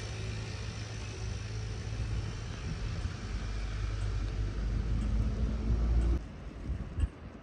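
Low, steady rumble of a motor vehicle that builds slowly and cuts off abruptly about six seconds in, leaving quieter background with a few faint clicks.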